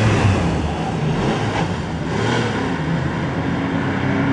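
Classic racing car engine running at speed on the track, its pitch rising and falling.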